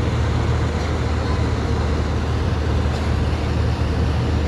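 Steady low drone of an airliner cabin in cruise: engine and airflow noise, unchanging throughout.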